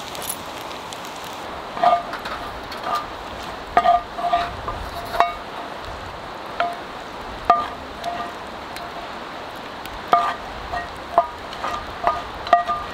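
Wooden spoon knocking against a cast-iron Dutch oven and an enamel bowl while scooping out browned sausage: about a dozen short ringing clinks at irregular intervals, starting about two seconds in, over a steady low hiss.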